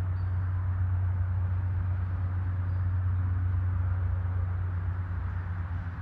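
Steady low background rumble of an urban outdoor scene, a little louder in the middle, with a fainter hiss above it.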